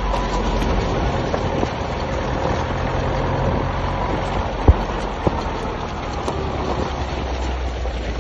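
A vehicle's engine running with a steady low rumble as it drives over a rough dirt track, with a single sharp knock a little past halfway and a smaller one just after.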